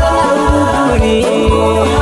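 A song: singing over a steady beat of about two beats a second.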